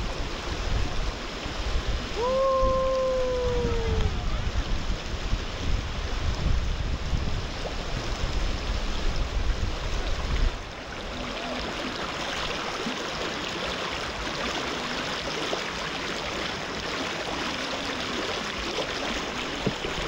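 Waterfall stream water rushing over rocks, a steady hiss. For the first half it carries a heavy low rumble, which drops away abruptly about halfway through, leaving a lighter, brighter rush.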